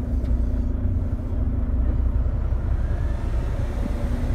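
Volvo VNL 860's diesel engine idling just after being started with the key, a steady low rumble heard from inside the cab.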